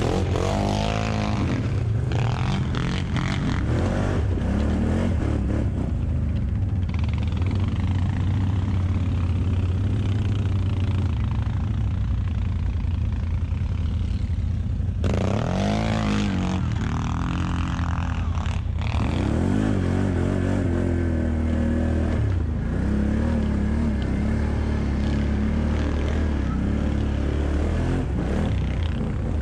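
ATV engine pulling under load up a steep snowy trail at low speed, running steadily with the revs rising and falling several times, most strongly about fifteen to twenty seconds in.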